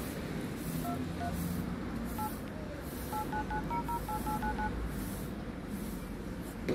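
Samsung Galaxy A2 Core dialer keypad tones: about a dozen short two-tone DTMF beeps as digits are tapped in, irregular at first and then in a quick run. The phone has just been repaired after water damage. A sharp click comes near the end.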